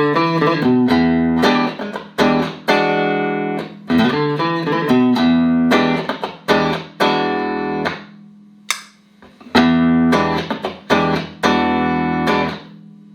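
Clean electric guitar, a Stratocaster through Roland JC-120 amps, playing struck chords that each ring out and fade, with a short pause about two-thirds of the way through.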